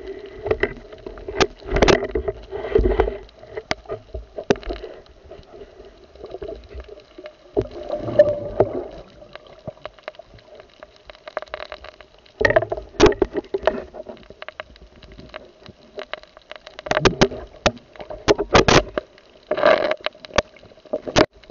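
Underwater sound heard through a camera's waterproof housing: irregular sharp clicks and knocks, with several short bursts of rushing, gurgling water as the diver moves.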